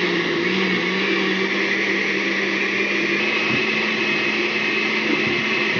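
Countertop blender with a glass jar running steadily, puréeing cooked tomatoes and guajillo chiles in broth: a constant motor hum with a high whine over it.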